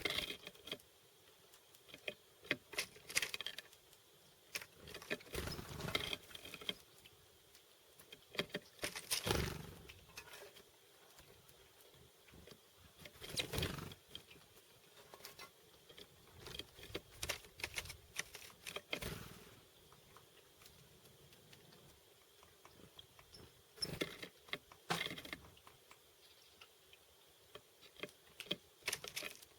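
Chickadees at a feeder: irregular sharp taps and clicks, with a short rushing noise every few seconds.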